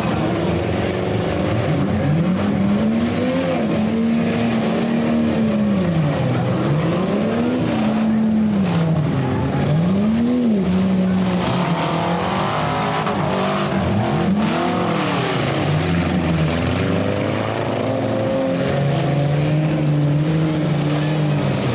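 Several demolition derby cars' engines revving hard and dropping off again and again as they accelerate, ram and back up, the pitches rising and falling in repeated arcs over a rough clatter of rattling bodywork and tyres.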